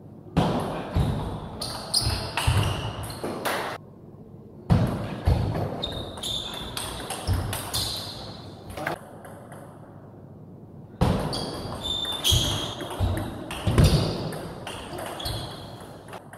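Three table tennis rallies, each cutting in abruptly: the ball clicks rapidly off rackets and table, with short high shoe squeaks on the sports floor and some voices in a large hall. Quieter room tone lies between the rallies.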